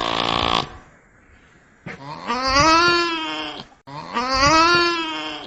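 Nutria (coypu) calling: the rough end of one call, then two long, bleat-like calls, each under two seconds, rising and then falling in pitch.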